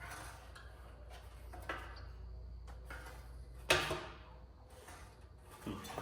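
Scattered knocks, clicks and rattles of parts and tools being handled while the rear fender wiring is taken apart, over a steady low hum. The sharpest knock comes a little before four seconds in.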